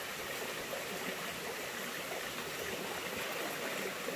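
Water of a small stream flowing steadily, an even continuous rush.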